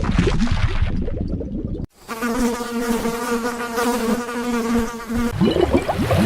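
A flying insect buzzing: one steady, low hum with overtones that lasts about three seconds, cut in abruptly between two short clips of noisy, scratchy animal sound.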